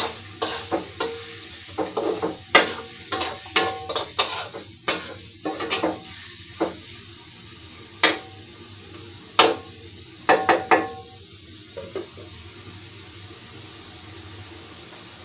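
Metal spatula stirring in a cooking pan, knocking and scraping against the pan in irregular clanks for about twelve seconds, then stopping. A steady low hum remains underneath.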